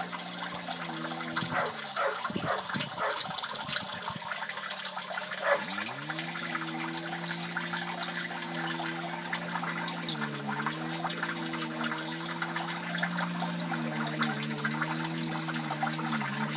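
Water pouring in a thin stream into a fish tank, splashing and trickling steadily, over a low machine hum. The hum cuts out about a second and a half in and comes back, rising in pitch, about six seconds in, then dips briefly in pitch a few times.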